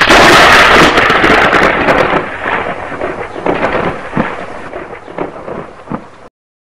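Logo-intro sound effect: a sudden loud crash of noise with crackles that fades away over about six seconds, then cuts off abruptly.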